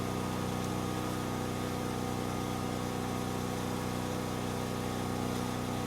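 Portable generator's engine running steadily at constant speed, a continuous even hum.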